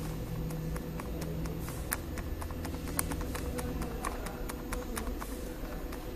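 Foil bag crinkling and being tapped as honey powder is shaken out of it into a stainless steel pot: scattered sharp clicks and rustles, over a steady low machine hum with a faint steady tone.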